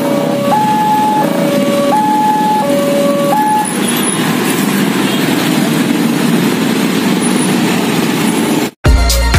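Railway level-crossing alarm sounding its high-low two-tone signal, about 0.7 s per tone, over the running engines of motorcycles and traffic. The alarm stops about three and a half seconds in as the barriers lift to clear the crossing, and the motorcycle traffic runs on. Near the end the sound cuts abruptly to loud electronic music with a heavy bass.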